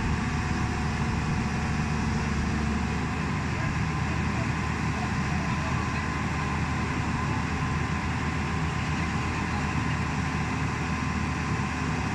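JCB JS205 tracked excavator's diesel engine running steadily as the machine loads itself onto a flatbed truck.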